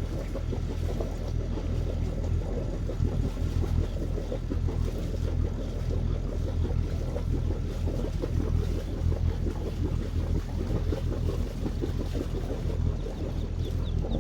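Boat engine running steadily under way, a continuous low drone.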